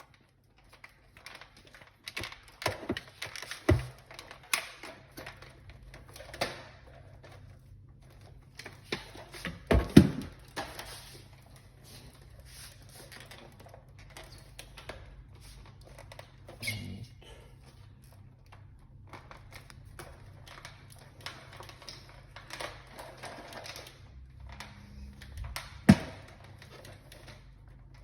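Scattered clicks and knocks from a Bosch vacuum cleaner being handled, its parts tapped and fitted, with two sharper knocks about ten seconds in and near the end.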